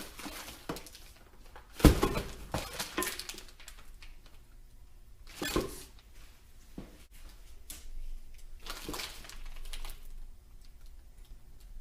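Metal parts and their packaging being handled: a sharp clank about two seconds in, a smaller knock a few seconds later, and bouts of rustling.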